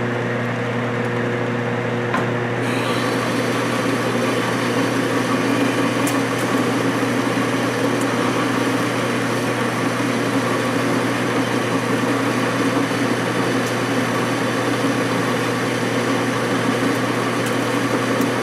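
Metal lathe running, with a high-speed steel turning tool starting its cut about two and a half seconds in and then cutting steadily: a continuous hiss of the cut over the lathe's steady hum.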